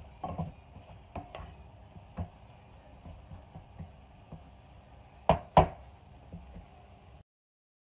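Wooden spatula stirring a panful of chopped tomatoes and onions, knocking and scraping against a steel pot, with two sharp knocks a little after five seconds. The sound cuts out suddenly near the end.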